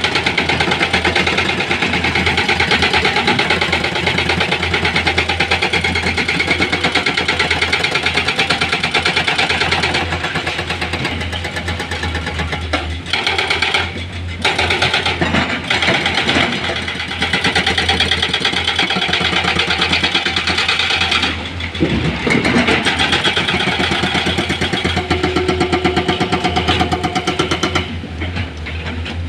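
Heavy diesel engine running steadily with a rapid even pulse, the sound dipping and shifting briefly a few times around the middle.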